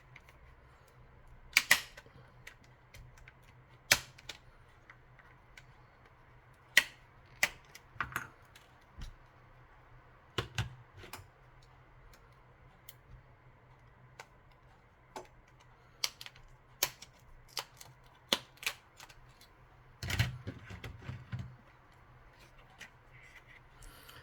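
Irregular sharp clicks and taps of a Samsung Galaxy Folder 2 flip phone's plastic housing and parts being handled and pried apart with small tools, with a short rattling cluster of taps about twenty seconds in. A faint steady low hum runs underneath.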